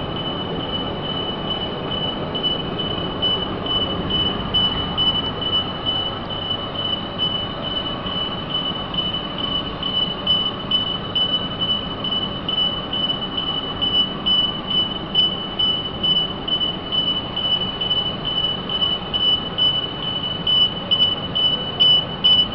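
An electronic buzzer in fire alarm cable testing equipment sounds a continuous high-pitched tone with a faint rapid pulse, over a steady background noise.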